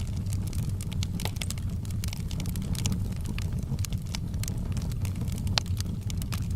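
Outdoor campfire crackling, with frequent small sharp pops from the burning wood over a steady low rumble; one louder pop near the end.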